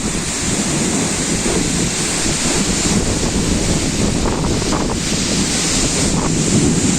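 Heavy downpour in a gale-force wind, with the wind buffeting the microphone in a low, uneven rumble over a steady hiss of rain.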